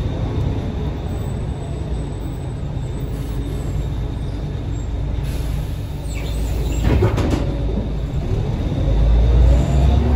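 Scania L113CRB bus's rear-mounted 11-litre six-cylinder CNG engine and road noise heard from inside the cabin. A brief high squeal comes about two-thirds through, then the engine note rises near the end as the bus pulls away.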